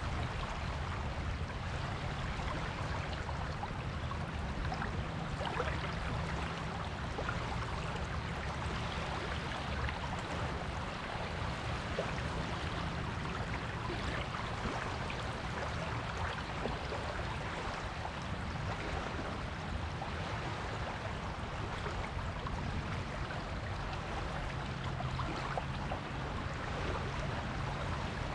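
Surf on a beach: waves washing in as a steady hiss and fizz, with a low rumble underneath.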